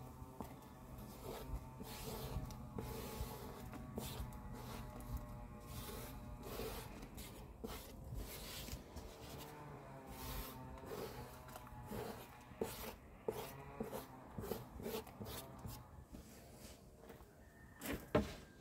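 Hands scraping and sweeping small squares of raw noodle dough across a floured wooden board, with many soft scattered taps and rustles, and a louder knock near the end.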